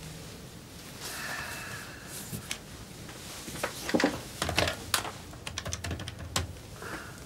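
A desk telephone being picked up and dialled: irregular sharp clicks and knocks of the handset and buttons, with a quick run of small clicks in the middle.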